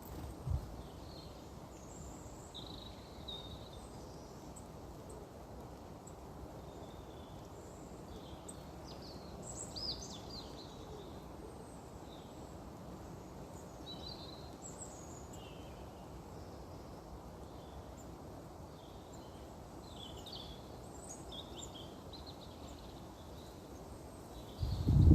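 Outdoor woodland ambience: scattered short calls and chirps of small birds over a steady low background rumble. There is a brief low thump just after the start and a louder low thud near the end.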